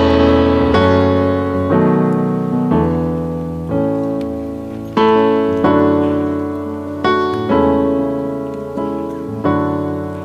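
Piano playing a slow ballad: full chords struck about once a second, each left to ring and fade before the next.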